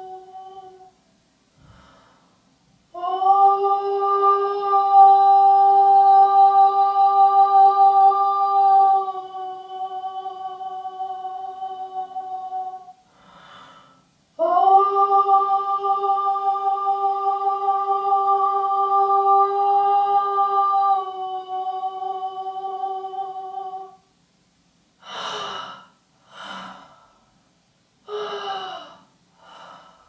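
A woman's voice humming a long held note on one steady pitch, about ten seconds, then again after a short pause. Near the end come several short, wavering vocal sounds.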